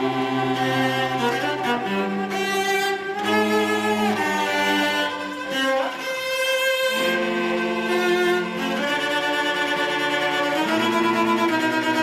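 Children's school orchestra playing a slow passage on bowed strings, violins and cellos holding sustained chords that change every second or two, with a brief break about halfway through.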